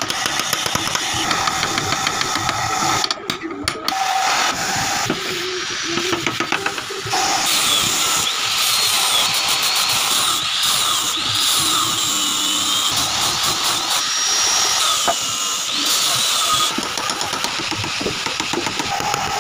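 Handheld angle grinder with a sanding disc sanding the wooden seat slats of a chair. Its whine rises and falls as it is pressed into the wood. It is loudest from about seven seconds in until a couple of seconds before the end.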